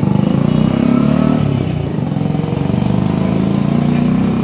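Motorcycle engine running, its pitch rising slightly just after the start and easing back about two seconds in, then running on steadily.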